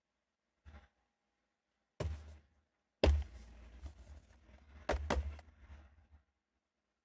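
Hands handling toy packaging: a light tap, a thunk about two seconds in, then a heavier knock followed by a few seconds of rustling with two sharp clicks near the middle.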